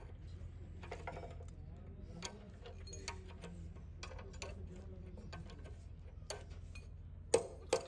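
Workshop background: a steady low hum with scattered light clicks and taps of metal being handled, and one sharper knock near the end.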